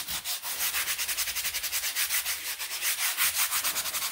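A damp sponge scrubbed fast back and forth over a rubbery, textured anti-fatigue kitchen mat, several strokes a second, to clean off a coffee stain.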